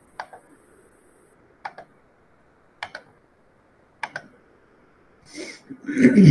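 Four sharp computer clicks, a little over a second apart, each a quick double of press and release. Near the end comes a louder, longer low sound that falls in pitch.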